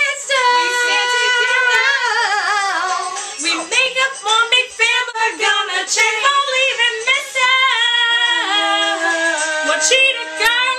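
Female voices singing a pop song melody, with sustained and bending notes.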